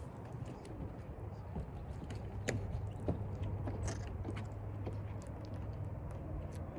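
Hot spring water bubbling at a geyser basin, with irregular pops and clicks over a steady low hum.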